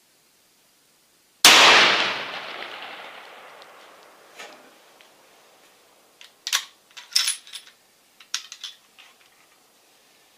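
A single shot from a .416 Ruger bolt-action rifle (Ruger M77 Hawkeye Guide Gun) about a second and a half in, with a long echo dying away over a couple of seconds. A few seconds later comes a short run of metallic clicks and clacks as the rifle is handled at the bench, typical of the bolt being worked.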